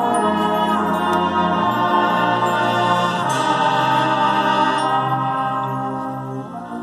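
Marching band playing slow, sustained chords, the held notes shifting to new chords about a second and a half in and again near the end.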